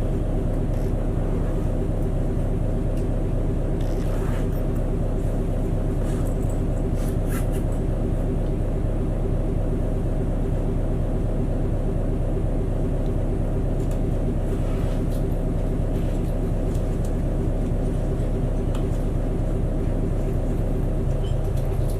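City bus engine idling steadily while the bus stands at a red light, heard from inside the passenger cabin, with a few faint clicks.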